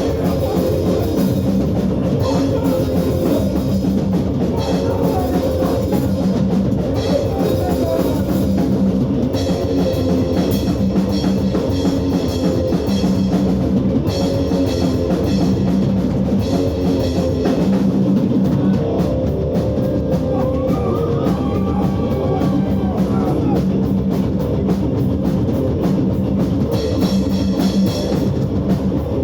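Live hardcore band playing loud, with distorted guitar, bass and a full drum kit, cymbals crashing in and dropping out several times.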